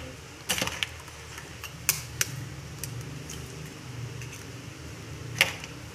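Eggs being tapped and cracked against the rim of a ceramic bowl: a handful of sharp taps and cracks, the loudest near the end, over a steady low hum.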